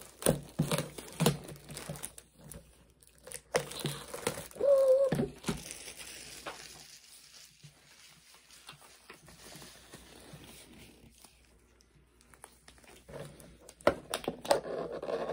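Disposable gloves being pulled on and stretched over the hands: bursts of rubbery rustling, crinkling and sharp snaps, with a quieter stretch in the middle.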